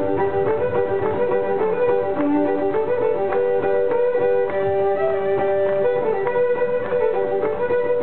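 Cajun fiddle tune: a fiddle bowed steadily in sustained, double-stopped notes while a second player beats a quick, even rhythm on its strings with thin sticks (fiddlesticks).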